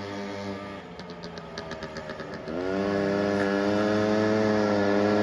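Small Predator 90 ATV engine revving up about halfway through, its pitch sweeping sharply upward and then holding a steady high note, louder than before. A run of faint rapid ticks comes just before the rev-up.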